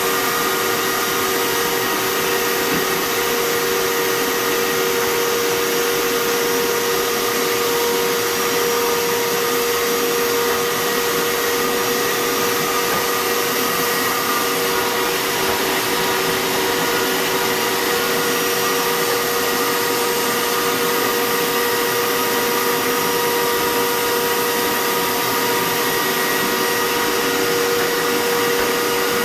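A small electric motor running steadily, an even airy rush with a fixed whine, unchanging throughout.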